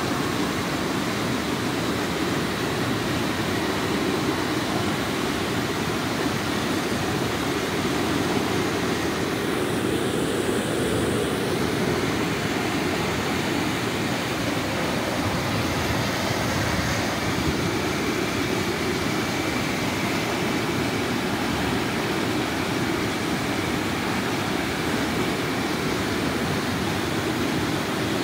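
River water pouring over a low concrete dam spillway: a steady rush of whitewater that holds even throughout.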